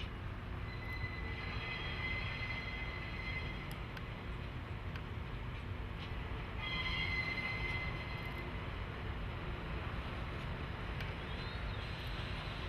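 Freight train of rail tank cars rolling along the track with a steady low rumble and faint clicks. High wheel squeal comes in twice, about a second in and again past the middle.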